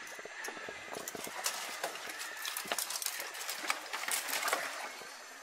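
Dry branches and twigs cracking, knocking and rustling as a person clambers through a tangle of deadwood, a string of irregular snaps and knocks.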